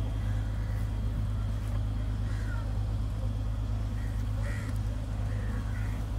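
A steady low hum, with crows cawing a few times.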